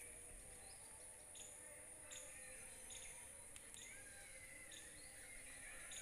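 Faint outdoor ambience: a steady high-pitched insect drone with scattered faint bird chirps, a few more of them in the second half.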